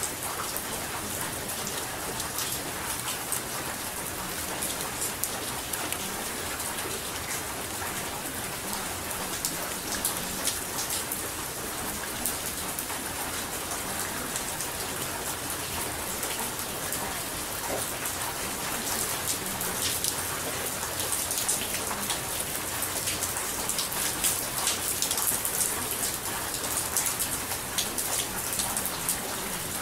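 Steady rain falling, with a constant hiss and many small drop ticks.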